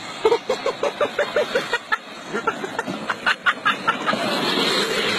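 A person laughing in quick, even bursts, then higher, broken shrieks of laughter. After about four seconds a steady rushing noise takes over.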